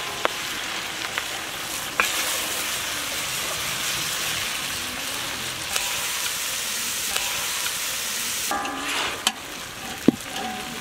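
Chicken pieces with spring onion and curry leaves sizzling in hot oil in a black wok, stirred and tossed with a metal spatula. The spatula clicks against the pan every second or two.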